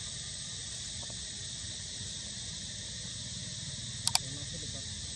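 Steady high-pitched drone of an insect chorus, with two quick clicks about four seconds in from a like-and-subscribe button sound effect.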